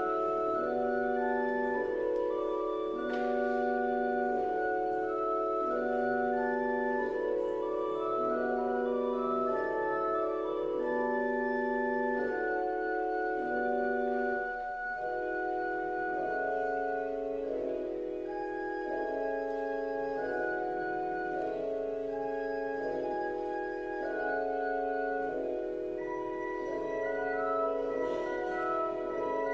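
Church organ playing a classical prelude: a repeating pattern of sustained chords in the middle range with higher notes above. The pattern shifts to new chords about halfway through.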